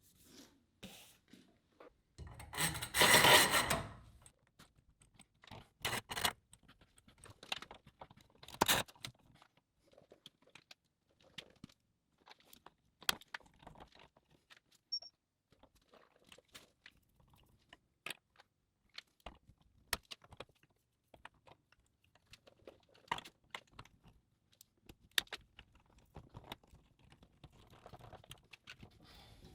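Scattered clicks, taps and scrapes of hands working on pipes and fittings, with a louder rustling, tearing burst about three seconds in and a sharp knock near nine seconds.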